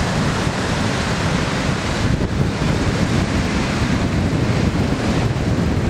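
Strong wind blowing hard across the microphone, a loud, steady rush heaviest in the low end, with sea waves washing on the shore beneath it.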